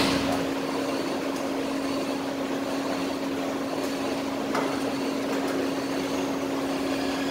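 Steady mechanical hum heard inside a car with its engine running, one constant tone over a low rushing noise.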